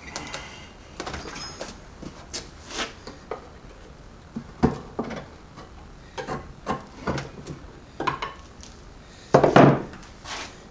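Hand tools and metal transfer case parts clinking, knocking and clattering in irregular strokes during disassembly, with a louder, longer clatter near the end.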